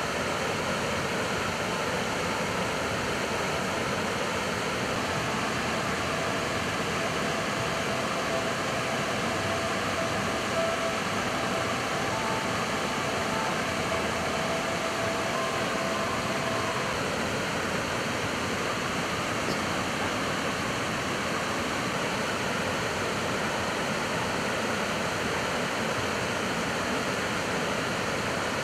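The Neretva river rushing steadily, an even, unbroken hiss of flowing water.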